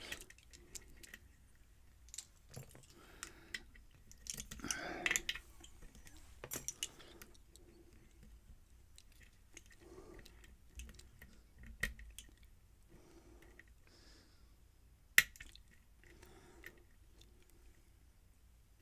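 Lock pick and tension wrench working the pins of a pin-tumbler challenge lock during single-pin picking: scattered faint metallic clicks and scrapes, with one sharp, louder click about fifteen seconds in.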